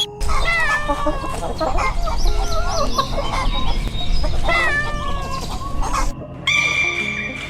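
Several chickens clucking in many short, overlapping calls over a low rumble. The clip cuts off about six seconds in and is followed by a single steady high-pitched call.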